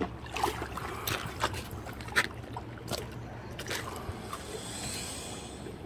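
Alligators stirring in shallow water at the bank: several short, sharp splashes over a steady low background rumble.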